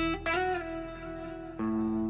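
Background music: slow guitar notes plucked and left to ring, with a new, lower note coming in about one and a half seconds in.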